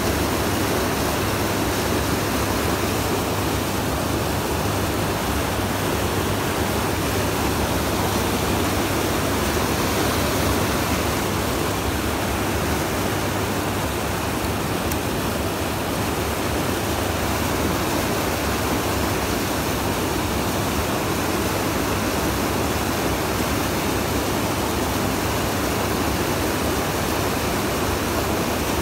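River rapids rushing and churning white against the rocks, a steady, unbroken water noise.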